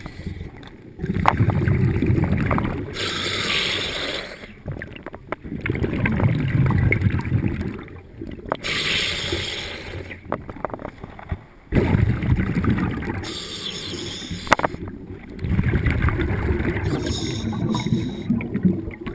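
Diver breathing underwater through a regulator: a hissing inhalation alternates with a gurgling rush of exhaled bubbles, about four breath cycles.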